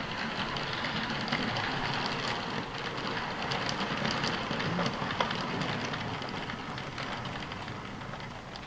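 Model train running along the layout's track, its wheels rattling and clicking over the rails, getting quieter near the end as it moves away.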